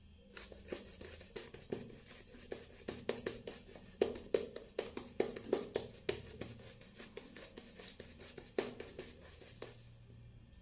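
Shaving brush working coconut shaving soap lather over the face and neck: quick, scratchy, wet strokes, several a second, that stop shortly before the end.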